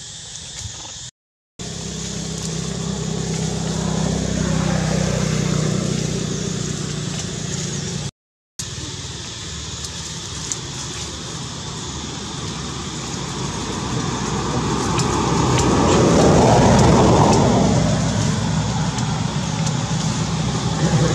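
Motor vehicle engine running steadily with a low hum, growing louder to a peak about sixteen seconds in as traffic passes, then easing off. The sound cuts out completely twice, briefly, near the start and about eight seconds in.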